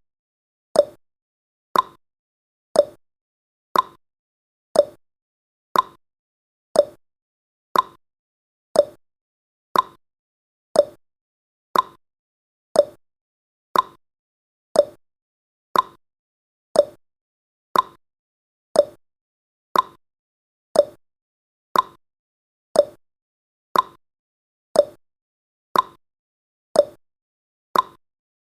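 A countdown timer's tick sound effect: one short, sharp tick each second, evenly spaced and unchanging.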